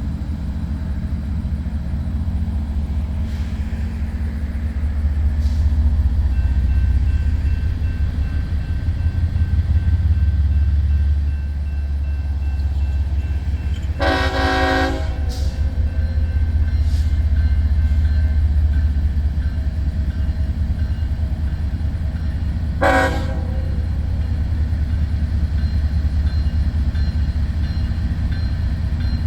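Two GE ES44AH diesel locomotives pulling a freight train away, their GEVO V12 engines giving a heavy low rumble that swells and eases. The lead unit's Nathan K5HL five-chime horn sounds a blast of about a second and a half past the middle, then a short toot near the end.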